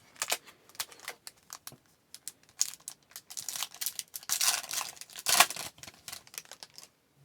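A foil trading-card pack being torn open, its wrapper tearing and crinkling in a dense run of crackling rustles through the middle, with crisp clicks and ticks of handling before and after.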